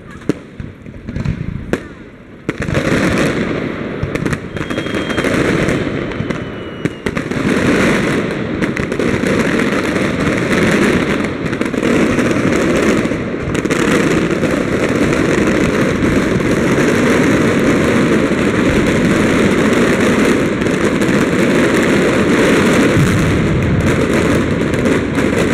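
Aerial fireworks display: a few separate sharp bangs, then from about two and a half seconds in a dense, unbroken barrage of many shells bursting at once.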